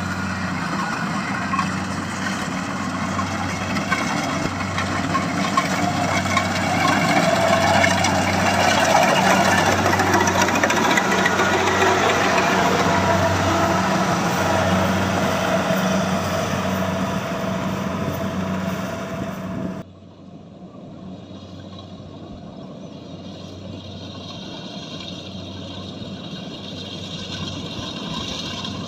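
Rice harvesting machine's engine running steadily with a low, pulsing hum and machinery noise. About two-thirds of the way through it cuts suddenly to a quieter engine sound.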